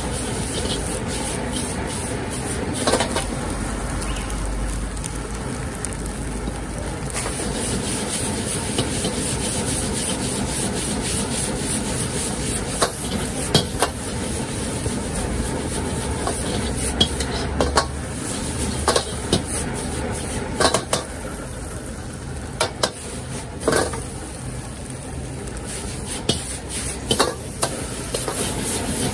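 Metal ladle scraping and knocking against a wok as noodles with bean sprouts are stir-fried over a high gas flame, with sizzling over the steady rush of the gas burner. The sharp knocks of ladle on wok come more often in the second half.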